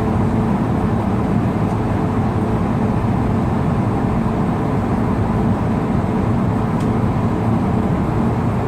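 Steady cabin noise inside an Airbus A220-300 in flight: the drone of its Pratt & Whitney PW1500G geared turbofans and the rush of air over the fuselage, with a low steady hum.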